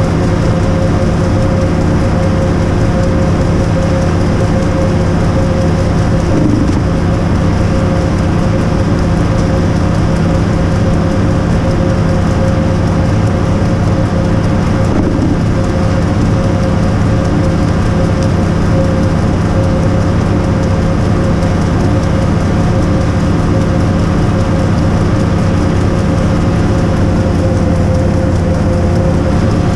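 Hydroseeder's engine running loud and steady at a constant speed, a deep hum with fixed tones, while a load of hydroseed mulch is mixed in the tank.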